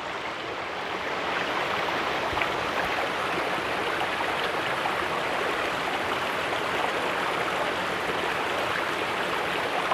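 Waterfall pouring: a steady rush of falling water, swelling a little over the first second or so and then holding even.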